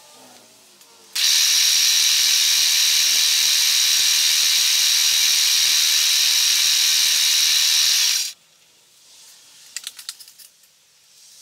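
Milling machine plunging a cutter through 1/8-inch 316 stainless plate: a loud, steady, high-pitched cutting noise that starts abruptly about a second in and cuts off suddenly about seven seconds later. A few light clicks follow near the end.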